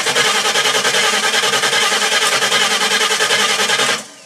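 Starter cranking a Ford 5.0 L (302) V8, turning the engine over in a fast, even chug without it firing, then stopping abruptly about four seconds in. This is a no-start.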